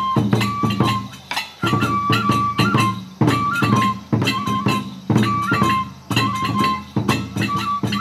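Kagura festival music: a bamboo flute holds a high, stepping melody over repeated drum strikes and bright metallic hits, moving in short phrases of about a second and a half.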